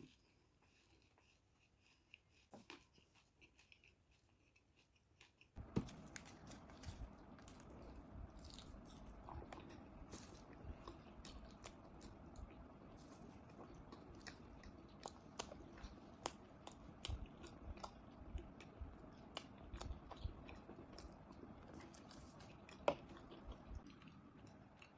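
Close-up chewing and crunching of Indian sweets, among them a dry-fruit laddu with cashews: many sharp crunches and clicks over a steady low hiss. It starts suddenly about five seconds in after near silence.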